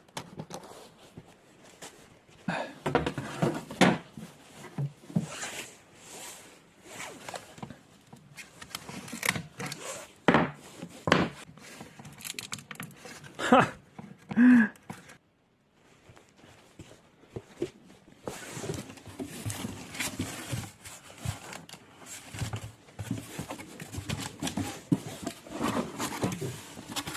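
Irregular handling noises: rustling with clicks and knocks as items are moved and packed, including one short squeak about fourteen seconds in.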